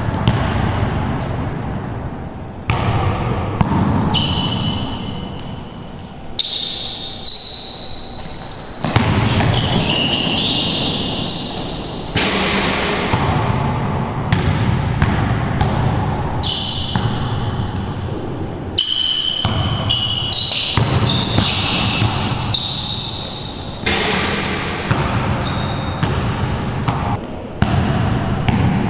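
A basketball being dribbled and bounced on a hard indoor court, with sneakers squeaking in short bursts as the players cut and defend. The bounces echo in the enclosed walled court.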